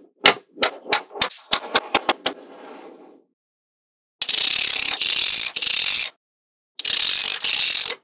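Small magnetic balls clicking as strips of them are snapped together. There is a quick run of sharp separate clicks in the first two seconds or so, then, after a pause, two dense rattles of many clicks, the first about two seconds long and the second about one second, as a strip is slid and pressed onto a flat sheet of balls.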